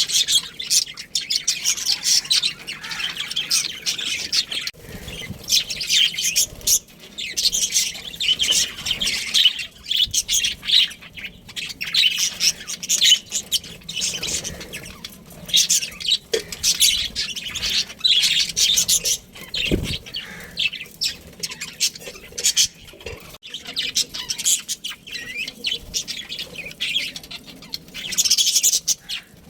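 Many small birds chirping and chattering at once in a continuous high-pitched din.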